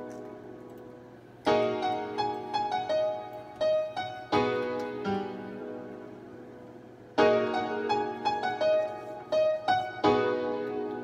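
Piano-like keys from beat-making software. A chord is struck about every three seconds and left to ring down, with a few short melodic notes after each.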